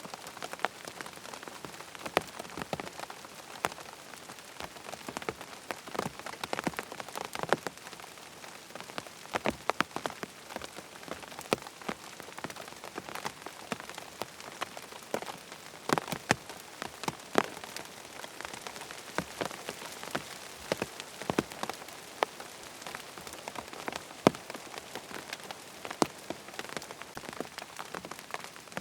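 Steady rain pattering on a tent's fabric, an even hiss with many separate drops striking, some louder and closer.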